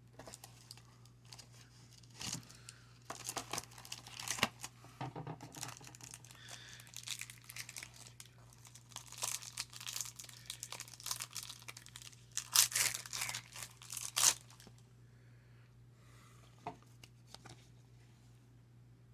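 Baseball card pack wrappers being torn open and crinkled, in a run of quick rips and rustles. The loudest tearing comes a little past the middle, then it dies down to a few small clicks.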